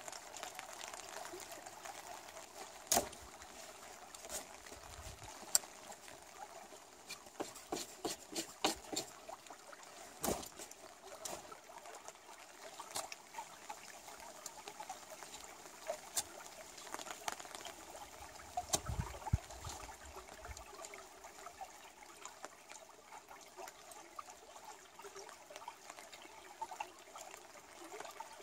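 Small rocky forest stream running and rippling over stones, with scattered sharp clicks and taps on top, a quick run of them about a third of the way in and a dull low bump a little past the middle.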